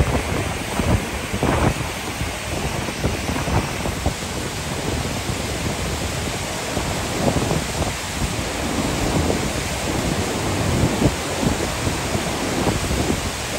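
Steady, loud rush of the Gullfoss waterfall pouring into its canyon, with wind gusting on the microphone.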